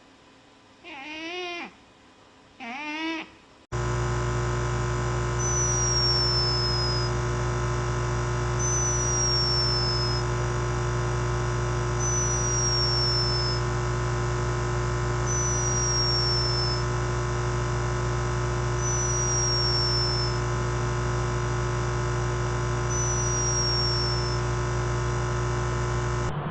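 Three short animal cries that bend in pitch. Then a sudden switch to a loud, steady electronic drone of many held tones, with a short falling high chirp repeating about every three and a half seconds.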